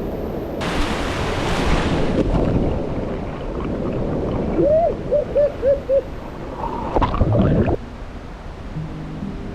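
Rushing, churning mountain-river water heard up close on the camera. About halfway through comes a run of five short tones that rise and fall, and a second later a louder splash-like burst.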